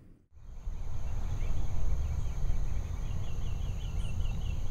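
Steady low rumbling noise on the microphone outdoors, with a bird's quick run of about eight high chirps around three seconds in.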